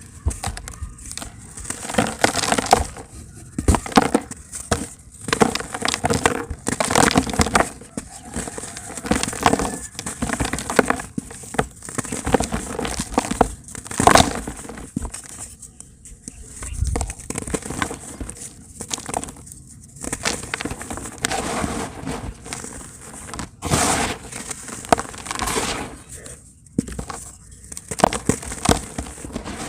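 Dry, hardened pure cement being crumbled and crushed in a tub: irregular crunching and crackling bursts with short pauses between them.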